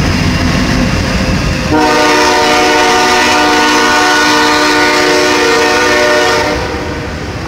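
Passing freight train rumbling, then a locomotive air horn sounds one long blast of several notes at once, starting abruptly about two seconds in and lasting about four and a half seconds. After the horn stops the rumble of the cars goes on more quietly.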